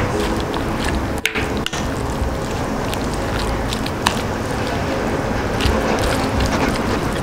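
Wooden spoon mixing butter-soy-sauce egg rice in a ceramic bowl: a steady, wet, sticky stirring sound with many small clicks, broken by two brief gaps about a second in.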